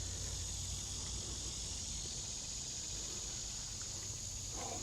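Steady high-pitched chorus of insects, likely crickets, running under a low, even rumble.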